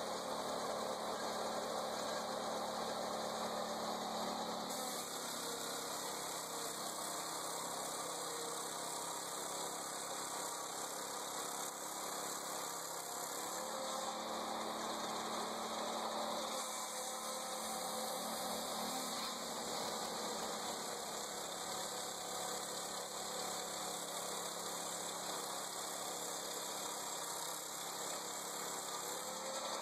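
Lucas Mill portable sawmill's petrol engine running steadily at an even speed.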